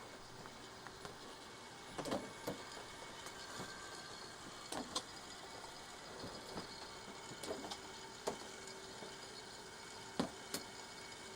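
Faint, irregular clicks and light knocks with a few short scrapes, as of small objects being handled and moved, over a low steady background hum. The sharpest knock comes about ten seconds in.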